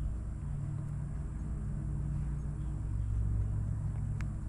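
Steady low mechanical hum, with a faint click about four seconds in.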